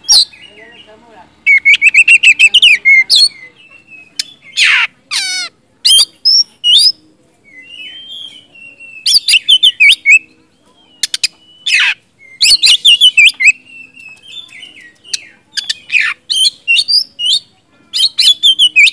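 Oriental magpie-robin singing loudly in full song: bursts of rapid, varied whistled phrases and trills, some sliding down in pitch, broken by short pauses.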